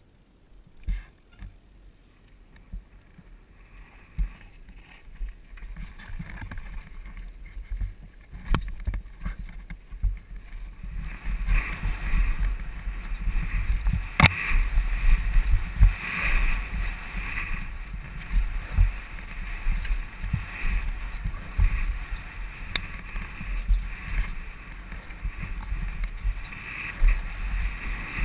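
Downhill mountain bike ridden fast over a dirt trail: rushing wind on the helmet camera's microphone, tyre noise and the bike knocking and rattling over bumps. It starts fairly quiet and grows louder and busier about eleven seconds in as the speed picks up.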